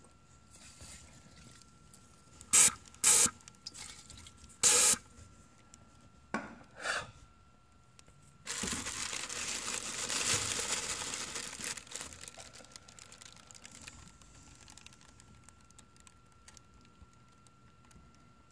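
Aerosol can of nonstick cooking spray hissing: a few short sharp bursts, then one long spray of about three or four seconds that tapers off, sprayed onto a glue trap to loosen the glue.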